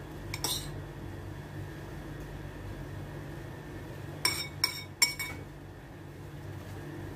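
Metal spoon scraping and clinking against a bowl while scooping out filling: a short scrape near the start, then three sharp ringing clinks in quick succession a little past halfway.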